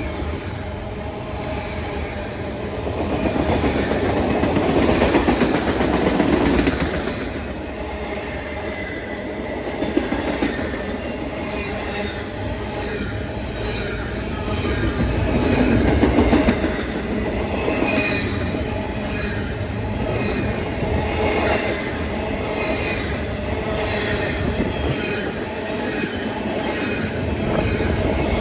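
A train rolling past with a continuous rumble. Its wheels clack rhythmically over the rail joints, about once a second in the second half, with a faint thin wheel squeal.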